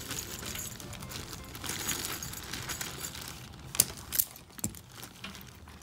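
Hand wire stripper being worked on solar panel cable: handling and rustling, with two sharp clicks of the tool about four seconds in.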